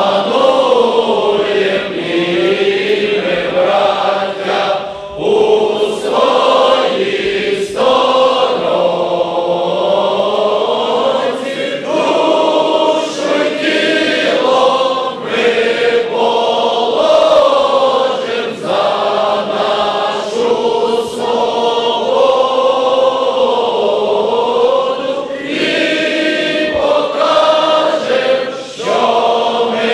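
Large crowd singing together in unison: a slow song with long held notes, sung in phrases with short breaks between them.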